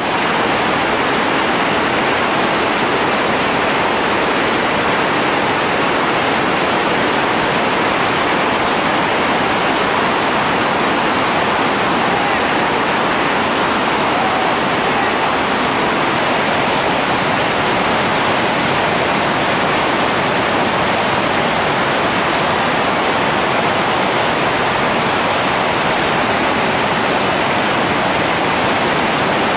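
Whitewater rapids rushing: a steady, loud roar of churning river water pouring over ledges and through holes.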